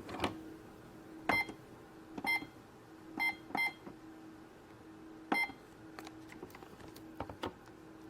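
Keypad of a Minnie's BowTique toy electronic cash register beeping as a price is keyed in by hand: five short electronic beeps, two of them close together, followed by a few light plastic key clicks near the end.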